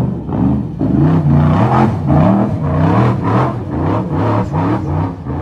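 Rock bouncer buggy's engine revving hard, its pitch rising and falling over and over as the throttle is worked on the climb up a steep rock face.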